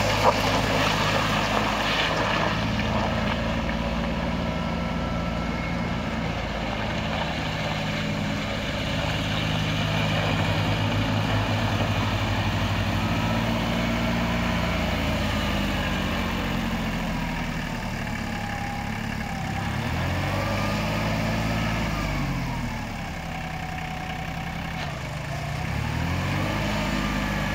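Compact cab tractor's diesel engine running as the tractor is driven slowly. Its note is steady for most of the time, then the engine speed rises and falls twice near the end.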